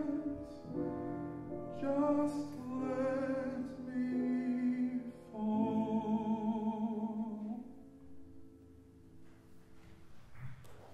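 Closing phrases of a slow ballad sung by a female soloist with piano, her voice carrying a wide vibrato. A last long held note ends about three-quarters of the way through and fades away, leaving a quiet tail.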